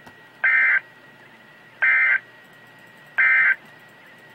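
Emergency Alert System end-of-message data bursts: three short, identical electronic warbling chirps about a second and a half apart, the SAME digital code that marks the end of the alert message.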